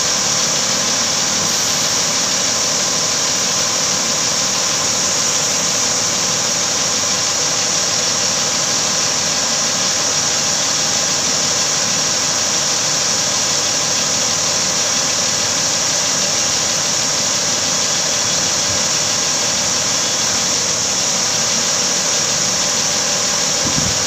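Diesel engine of a 50-tonne truck-mounted crane running steadily under the suspended load, with a steady high whine over it.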